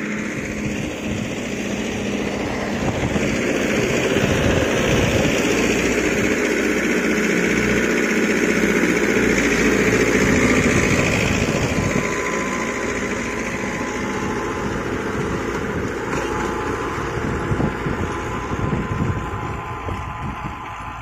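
Mahindra Yuvo 585 DI 4WD tractor's four-cylinder diesel engine running steadily under load while it drives a rotavator tilling damp soil. It grows louder a few seconds in as the tractor passes close, then fades as it moves away.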